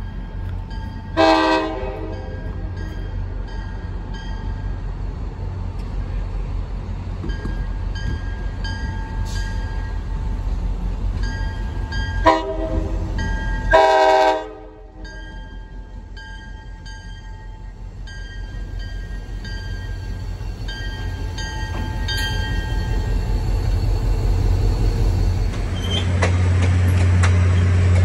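CapeFLYER passenger train's diesel locomotive approaching and passing. Its horn sounds three blasts, one about a second in and two close together around the middle, over a rumble that grows steadily louder. Near the end the locomotive comes past close by with a loud engine drone.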